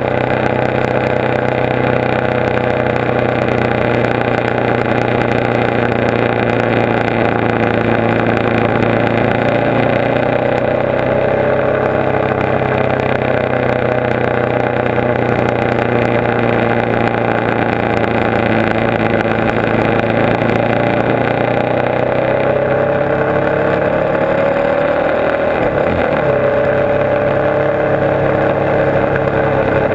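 Motorcycle engine running at road speed, heard from a camera mounted on the bike itself. The engine note drifts up and down gently, dips briefly near the end and climbs again.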